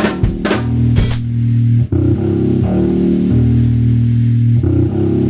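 Drum kit playing over a sustained bass-guitar line. A few sharp drum and cymbal hits come in the first second or so, then the bass notes carry on, changing pitch, with only light drumming.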